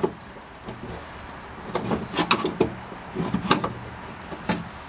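A screwdriver clicking and scraping on the tailgate lock's retaining clips as they are prised free. There are several short, sharp clicks, starting about two seconds in.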